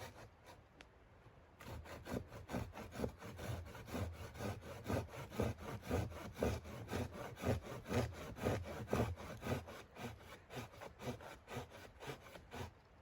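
Hand saw cutting through wood in quick, even back-and-forth strokes, about four a second, starting shortly after the beginning and stopping near the end.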